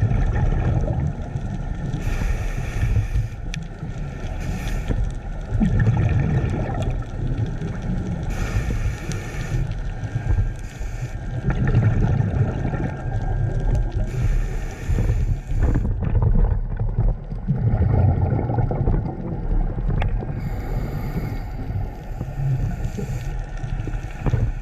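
Scuba diver breathing through a regulator underwater: a hissing inhale, then a low bubbling burst of exhaled air, repeating about every six seconds, four breaths in all.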